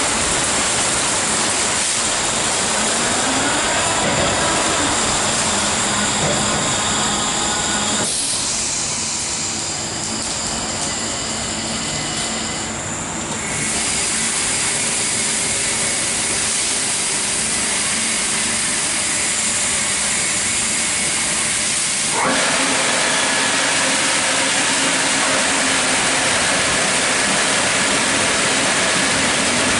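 Christ Genius Vitesse rollover car wash running, a loud steady hiss of spraying water and machinery, with the brushes on the car at the start. The sound changes sharply about eight seconds in, and about 22 seconds in it jumps louder and brighter.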